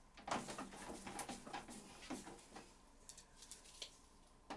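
Screwdriver turning screws into a printer's plastic rear cover: faint, scattered clicks and scrapes.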